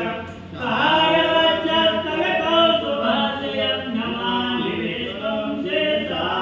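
A priest chanting Hindu puja mantras in a melodic, sung recitation, pausing briefly for breath about half a second in.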